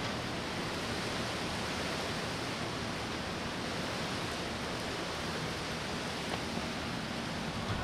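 Steady, even rushing noise of outdoor ambience, unchanging throughout, with no distinct events.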